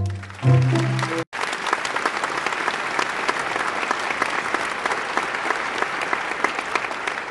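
A few last notes of music that cut off suddenly about a second in, then an audience applauding steadily.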